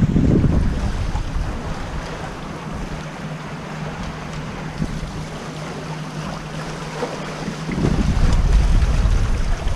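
Wind buffeting the microphone and water rushing past the hull of a Corsair F-27 trimaran sailing under spinnaker. Heavier gusts of wind rumble at the very start and again near the end.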